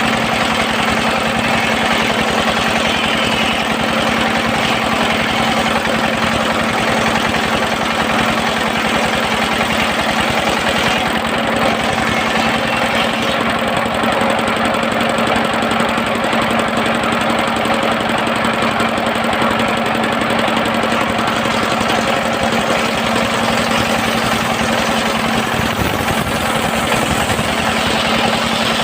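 Engine of a circular-blade sawmill running steadily, with a constant hum and a fast, even pulse of firing strokes.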